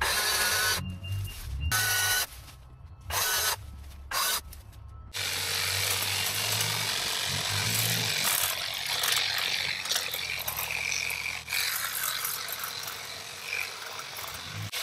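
Kress battery hedge trimmer run in a few short bursts with pauses between, then running continuously from about five seconds in as its blades cut through hedge branches and brambles.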